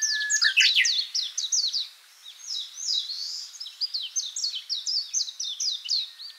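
Songbirds chirping in a fast, dense run of quick downward-sweeping notes, with a long steady whistle at the start and again at the end and a short lull about two seconds in.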